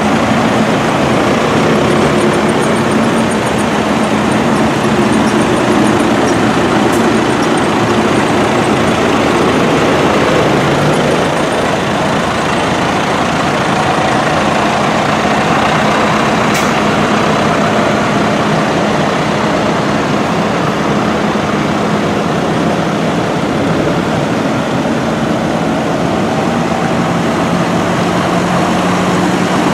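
Diesel engines of large Fendt and John Deere farm tractors running steadily as the tractors drive past one after another, a continuous loud drone.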